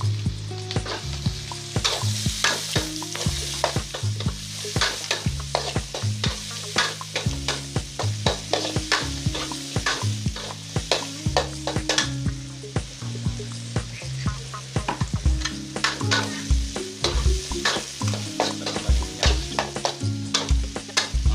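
Tempe and sliced carrots sizzling as they stir-fry in hot oil, with a spatula scraping and clattering against the pan many times a second.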